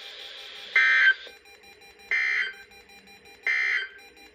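Three short bursts of Emergency Alert System SAME digital data tones over NOAA Weather Radio, each well under half a second long and about 1.4 s apart, heard over a faint background hiss. They are the end-of-message codes that close the tornado drill alert.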